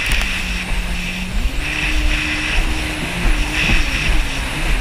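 Yamaha jet ski engine running under way, its note rising about a second and a half in and then dropping and wavering as the throttle changes. Heavy wind rumble on the microphone runs underneath.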